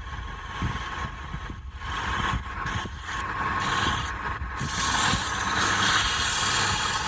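Wood lathe running with a steady low hum, and a rough scraping hiss from work on the spinning palm-wood blank that grows louder about halfway through.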